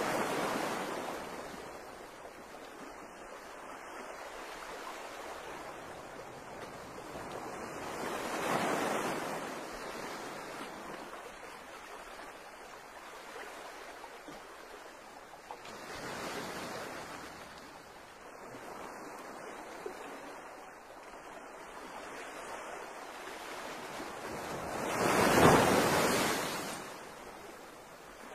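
Sea water washing against a concrete quay, coming in four slow surges about eight seconds apart, each swelling and fading over a couple of seconds, the loudest near the end, over a faint steady wash.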